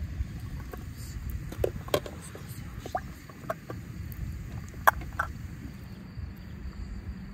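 Wood fire crackling under a large metal pot: irregular sharp pops, the loudest about five seconds in, over a low steady rumble.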